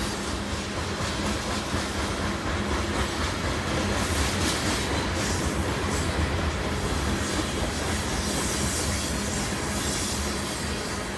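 Loaded coal cars of a BNSF freight train rolling past at a steady speed: the continuous noise of steel wheels running on the rails.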